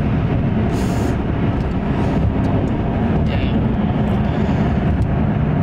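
Maserati GranTurismo S's 4.7-litre V8 running at a steady cruise with road and tyre noise, heard inside the cabin: an even low drone with no revving.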